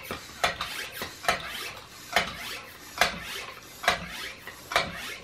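Hand floor pump inflating a pitbike tyre's freshly fitted inner tube: six steady strokes, a little under one a second, each a sharp knock followed by a short rush of air.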